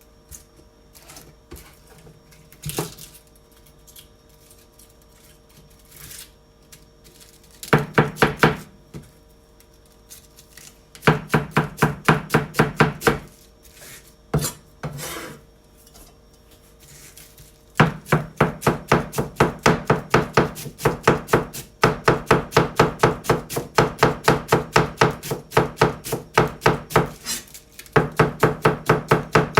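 Kitchen knife shredding cabbage on a cutting board, cutting it into fine strips. Scattered knocks and handling come first, then quick runs of chopping strokes about 8 and 11 seconds in, and the chopping runs almost without a break from about 18 seconds on, about five strokes a second.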